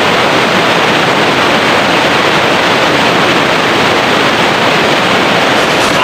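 Loud, steady rush of whitewater pouring over rocks in a mountain stream, close by.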